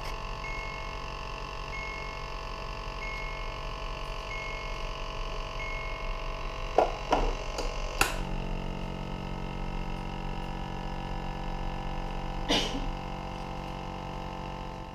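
Dental vacuum-forming machine running with a steady drone and a short beep about every 1.3 s. A few clunks come around seven and eight seconds in as the frame with the heated 1 mm sheet is pressed down over the model, after which a deeper suction hum sets in. Another knock comes near the end.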